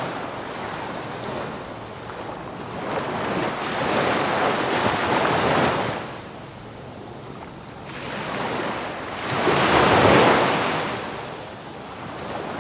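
Ocean surf breaking on a sandy beach, the wash swelling and falling back in three main surges a few seconds apart.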